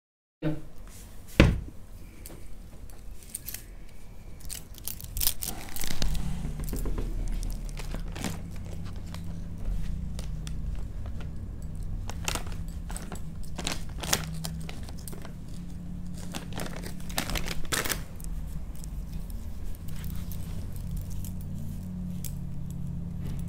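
Plastic tissue packet crinkling and tissues rustling as they are pulled out and handled, with scattered clicks and a sharp knock about a second and a half in, over a steady low hum.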